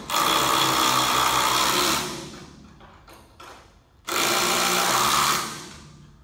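Power drill running in two bursts, the first about two seconds long and the second a little shorter about four seconds in, each winding down as the trigger is let go, as it drives in bolts.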